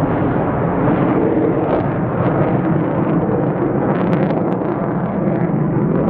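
Jet roar from an F-4EJ Phantom's twin J79 turbojet engines passing overhead: a loud, rough, steady rumble with a few sharp crackles about four seconds in and again at the end.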